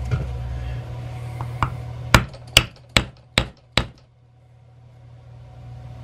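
Mallet striking a metal oak-leaf stamp into leather: a couple of light taps, then five sharp blows about two a second, setting the oak leaf impression.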